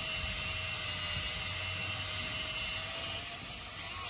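Makita 18V cordless drill running steadily as it drills out a stripped bolt hole in an aluminium cylinder head to take a HeliCoil insert; the motor whine stops about three and a half seconds in.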